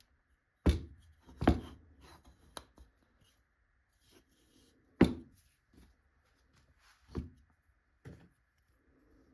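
Wood being knocked and handled: six sharp knocks at uneven intervals, with lighter taps and scraping between them.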